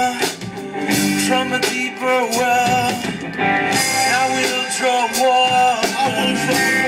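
Live rock band playing, with electric guitars, a drum kit and singing.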